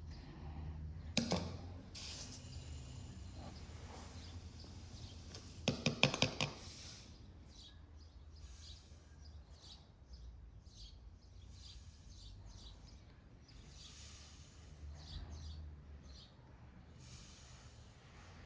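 A drinking glass scooping granulated sugar from a bowl and tipping it into a large glass jar of pomegranate seeds: a sharp glassy tap about a second in and a quick run of clinks and taps around six seconds in, the loudest sounds, with soft handling and sugar rustle between. Faint bird chirps behind.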